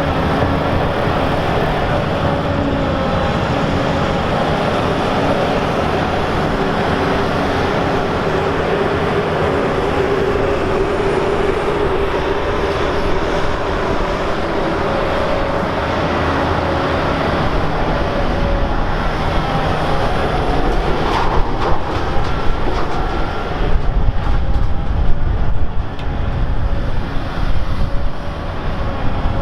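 Heavy diesel earthmoving machinery, a large Volvo mass excavator loading articulated dump trucks, running steadily with a whine over the engine drone. In the last few seconds it turns louder and uneven, with knocks and rumbles.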